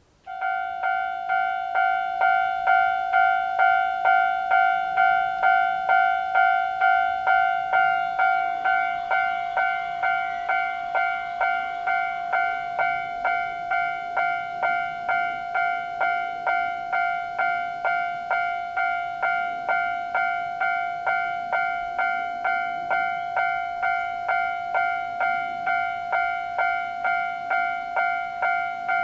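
Japanese railway level-crossing warning bell starting to ring about a quarter second in, then sounding its two-tone clang steadily at about one and a half strikes a second.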